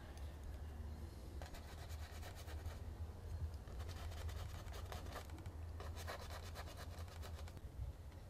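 Paintbrush bristles scrubbing oil paint onto a stretched linen canvas: three bouts of quick back-and-forth scratchy strokes, over a steady low rumble.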